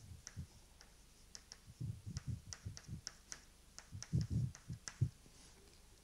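Chalk tapping and scratching on a blackboard as an equation is written, heard as many light sharp clicks. Soft low thumps of footsteps come in a few short bursts as the writer moves along the board.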